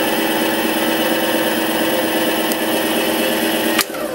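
Mini lathe running at high speed in reverse, a steady motor and spindle whine, while a 3-48 tap in the spindle cuts teeth into an extruder roller. Near the end a sharp click, then the whine falls in pitch as the spindle slows down.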